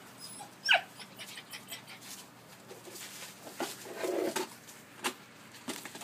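Rough collie puppies playing. About a second in, one gives a short high yelp that falls quickly in pitch. Claws patter and click on the concrete floor, and a brief lower whine comes near four seconds.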